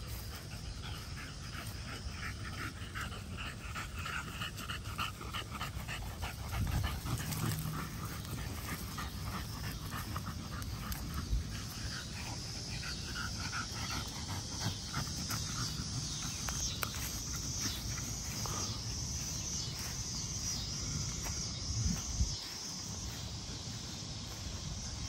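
American bully dogs panting in quick repeated breaths as they run and play, strongest in the first half.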